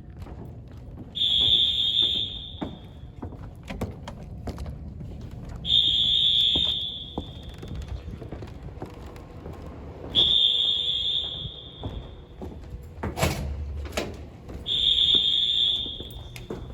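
Fire alarm horns of first-generation Wheelock AS horn-strobes sounding during an alarm test. Four high-pitched blasts about a second long come roughly every four and a half seconds, with scattered knocks and thumps between them and one sharp knock about thirteen seconds in.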